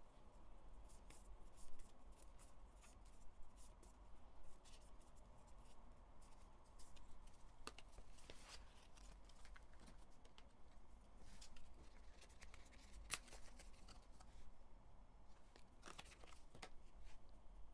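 Faint clicks and rustling of photocards and cardboard card sleeves being handled and flipped through.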